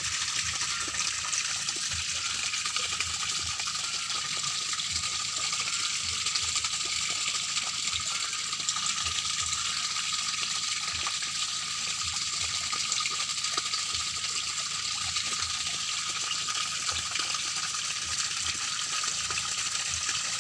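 Steady gush of pumped water pouring into a shallow tarpaulin-lined tank and splashing across the surface.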